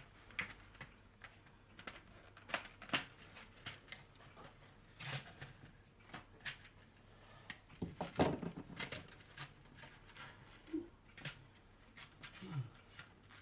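Faint, irregular small clicks and taps of tiny plastic model parts being handled and set down on a work surface: model railway passenger figures.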